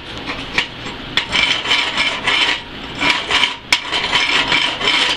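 Steel chipping hammer repeatedly striking and scraping along a fresh flux-core weld bead on steel plate, knocking off the slag after a fill pass. A sharp metallic click stands out a little past halfway.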